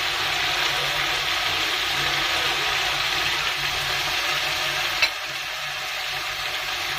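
Rui fish head and masala sizzling in a nonstick wok, a steady hiss, with one sharp click about five seconds in.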